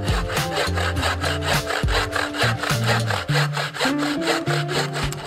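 Bow saw cutting through a wooden branch with quick, even back-and-forth strokes, a rasp on each stroke.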